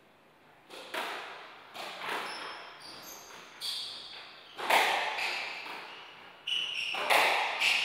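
Squash rally: the ball cracks off rackets and the walls in sharp knocks every second or so, echoing around the court, with short squeaks of shoes on the wooden floor between shots.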